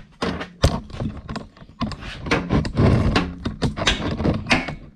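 Camera handling noise close to the microphone: irregular knocks and thuds, then a dense stretch of rubbing and rustling about two seconds in.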